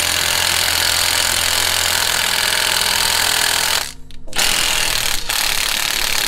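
Milwaukee M18 cordless impact wrench hammering continuously on a nut, driving it along a bolt to press a wheel hub out of its steering knuckle. It stops briefly about four seconds in, then starts hammering again; the hub is not giving way to this smaller impact.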